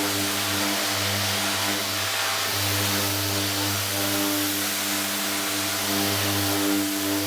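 Power sander running steadily with a constant hum and hiss, lightly sanding hardened clearcoat with 400-grit paper to knock down orange peel.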